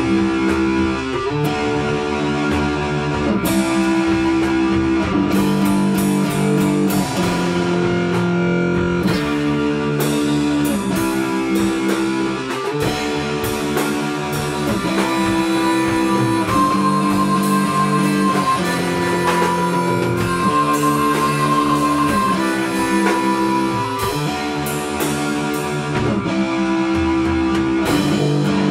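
Guitar-led instrumental music, with sustained chords changing every couple of seconds and a high held note coming in about halfway through.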